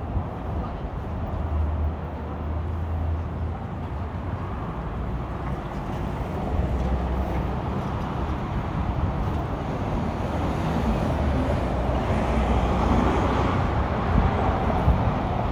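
City street traffic: a steady low engine rumble from vehicles at an intersection, with cars passing, building gradually louder over the last several seconds.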